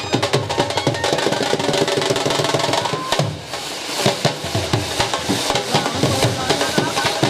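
Dhol drums being played in rapid, steady strokes, with a short lull a little over three seconds in.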